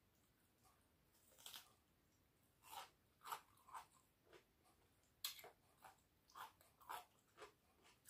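Faint close-up crunching and chewing of fresh cucumber slices, a series of short, irregular crunches.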